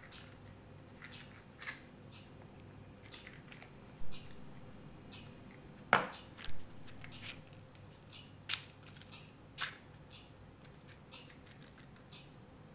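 Scattered sharp clicks and taps of small objects being handled on a table while a cigarette is taken and put to the lips, the loudest click about six seconds in.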